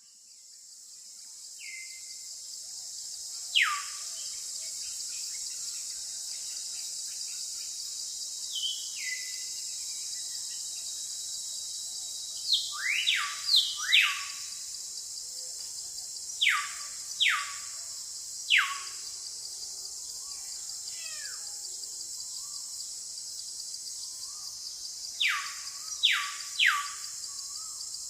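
Jungle ambience: a steady high-pitched insect chorus, fading in over the first few seconds, with a bird giving loud whistled calls that fall sharply in pitch, singly and in quick runs of two or three.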